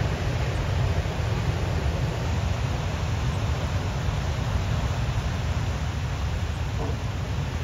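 Heavy surf breaking and washing up onto a boulder beach: a steady rush of noise with a strong low rumble, no single wave crash standing out.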